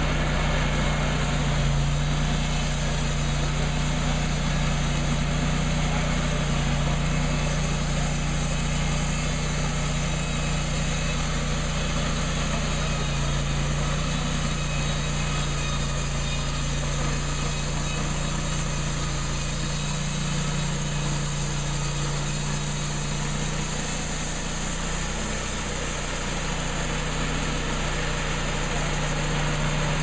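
Engine of an EZ Boardwalk portable band sawmill running steadily under load while its band blade cuts along a log, a constant low hum.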